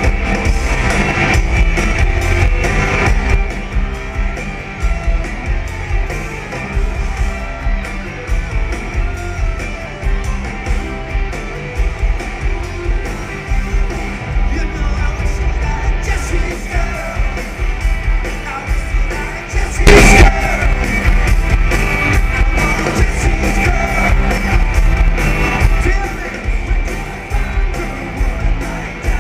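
Live rock band playing loud at a concert, electric guitar and drums with singing, in a muddy, harsh audience recording. A sudden loud hit about twenty seconds in.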